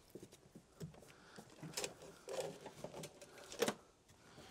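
Hands handling loose wiring and clutter under a van seat base: scattered small clicks and rustles, the sharpest about two seconds and three and a half seconds in.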